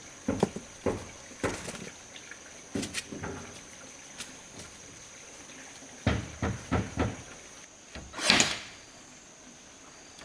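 Irregular knocks and thumps of things being handled, in two clusters, then a short, loud hiss a little after eight seconds, over a steady high-pitched tone.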